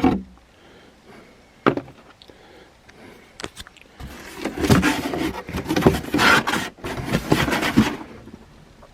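Handling of a tool case and its packaging: a couple of sharp clicks, then a few seconds of busy rustling and knocking as the contents are taken out.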